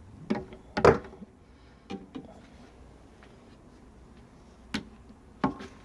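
Sharp clicks and knocks from handling and repositioning a shear-sharpening machine and its sharpening guide, about half a dozen spaced apart, the loudest about a second in.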